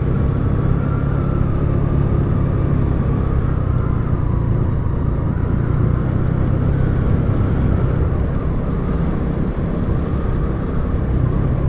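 Motorcycle engine running steadily under way, its faint whine wavering a little in pitch, over heavy low rumble of wind and road noise on the rider's microphone.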